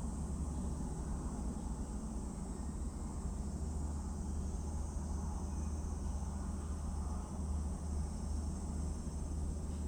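Steady background noise: a low hum under a steady high-pitched hiss, with no distinct events.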